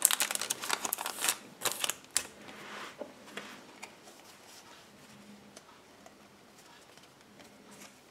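Foil trading-card booster wrapper crinkling in hand, with a run of sharp crackles in the first two seconds, then only faint rustles and taps.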